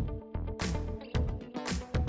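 Background music: an electronic dance track with a steady, punchy beat.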